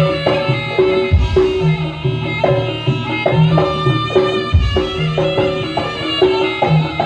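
Javanese jaranan music: a gamelan-style ensemble of drums and tuned struck metal percussion playing a repeating pattern, with a deep gong stroke about a second in and again about four and a half seconds in.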